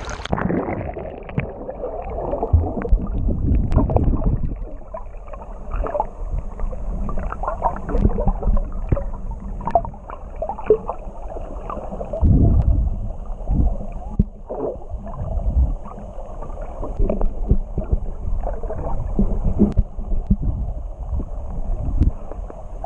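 Muffled underwater sound picked up by a camera held under the sea surface: a dull, low rumble of moving water with scattered clicks and gurgles, and no high tones.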